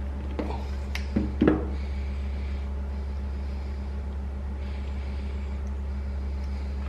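Workbench handling noise: a few small clicks and a sharper knock about a second and a half in, from working small parts and wire by hand, over a steady low hum.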